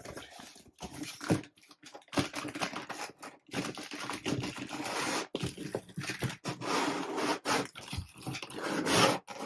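Packaging being handled as the contents come out of the box, a long run of rustling, crinkling and tearing with small knocks of handling.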